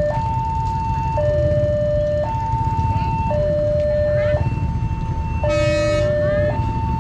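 Railway level-crossing warning alarm sounding an alternating high–low two-tone signal, each tone held about a second, warning that a train is approaching the lowered barriers. Just past the middle, a horn blows once for about a second, over a steady low rumble.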